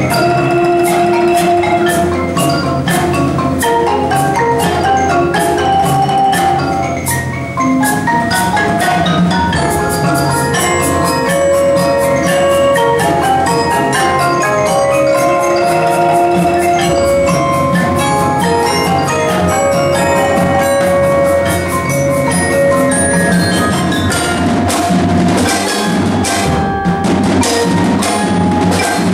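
Percussion ensemble playing: marimbas and other mallet instruments sound a dense stream of rapid struck notes over a low sustained bed, with sharp strokes growing more frequent near the end.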